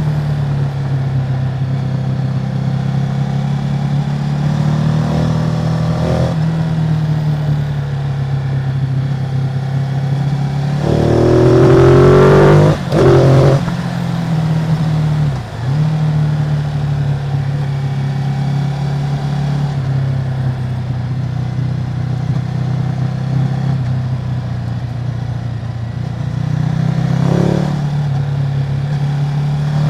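Ducati Multistrada 950's 937 cc L-twin engine, on its stock exhaust, running steadily under way. About eleven seconds in it revs up hard with a rising pitch, breaks off briefly for a gear change and pulls again, with smaller rises in revs near the end.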